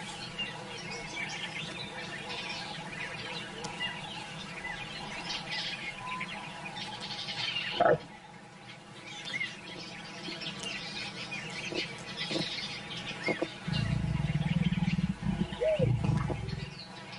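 Birds chirping and calling in the bush, with a short, loud cry about eight seconds in. Near the end, a loud low rumble lasts about three seconds.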